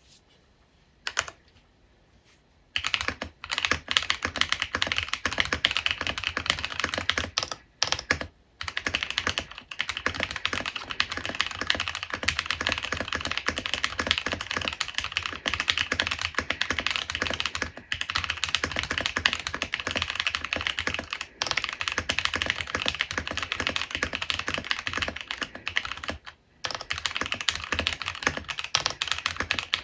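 Typing on an Epomaker MiniCat64 mechanical keyboard with lubed Blueberry Chiffon switches and November Fog keycaps. After a near-quiet start with a few single key clicks, a fast, steady run of keystrokes follows, broken by a couple of short pauses.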